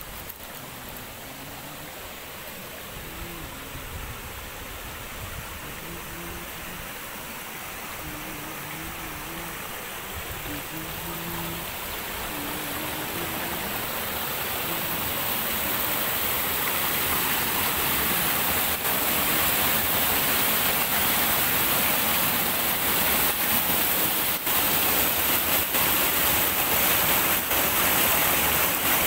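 Small mountain stream rushing and splashing down a rocky cascade, growing steadily louder over the first twenty seconds as it comes nearer, then steady.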